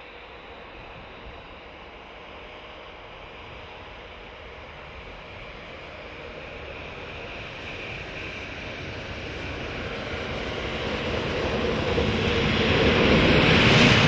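John Deere 6530 tractor pushing snow with a front plough: the engine and the rush of snow thrown off the blade grow steadily louder as it approaches and are loudest near the end, as it passes close by.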